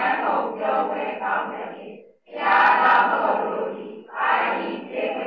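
A group of voices chanting in unison in long phrases, with a short break a little after two seconds in.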